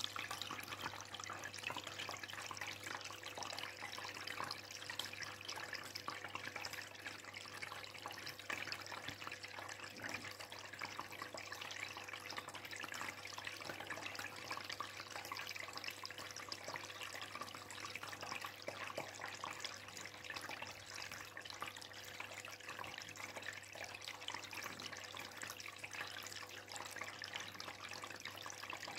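Steady trickling and bubbling of aquarium water, with a steady hum underneath.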